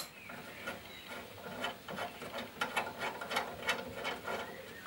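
Faint, irregular clicking and light scraping of small metal parts as a nut is fitted by hand on a stripped car door frame.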